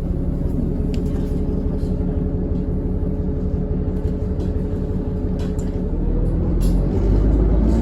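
Alexander Dennis Enviro400 double-decker bus heard from on board: its diesel engine runs with a steady low drone and a faint hum above it, with light ticks and rattles. About six seconds in, the drone grows louder and deeper.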